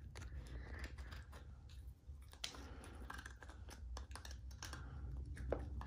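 Shiba Inu puppy gnawing at a hard dog biscuit held in a hand: an irregular run of small crunches and tooth clicks. The biscuit is a little too big and hard for the puppy to bite through easily.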